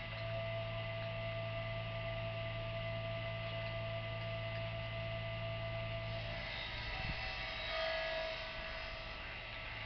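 A steady low hum with thin higher whining tones over it; the low hum drops away about six and a half seconds in while the higher tones shift, then returns.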